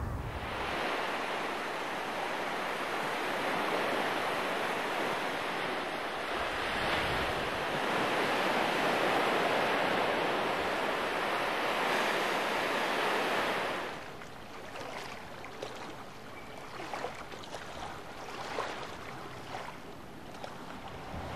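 Lake waves breaking and washing up on a sandy beach, a steady rushing surf. About fourteen seconds in it gives way to a quieter wash of water with faint scattered clicks and splashes.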